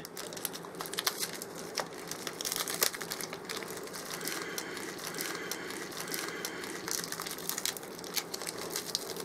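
A small taped package being unwrapped by hand: plastic wrapping and tape crinkle and crackle irregularly, busiest around three seconds in.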